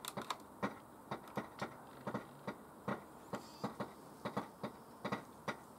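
Light, irregular clicks, about three or four a second, as a hand works the controls of a Sony HVR-V1 camcorder while switching it on. A faint short high tone sounds about three and a half seconds in, as the camcorder starts up.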